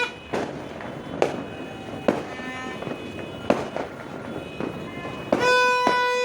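Firecrackers going off: separate sharp bangs, about six, a second or so apart. Near the end a horn sounds one steady note for about a second.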